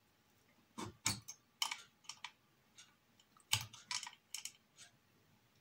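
Light, irregular clicks and taps of a small spanner and nuts on the PCB's mounting bolts as the nuts are snugged down.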